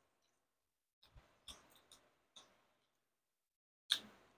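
Quiet eating sounds: a few soft clicks and smacks from plastic spoons and mouths, with a sharper click about four seconds in.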